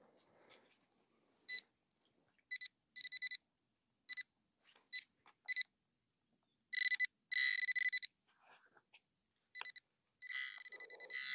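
Quest Xpointer Max pinpointer beeping as it is worked through loose dug soil: scattered short, high-pitched beeps at first, then longer beeps coming almost without a break near the end as it homes in on a small coin.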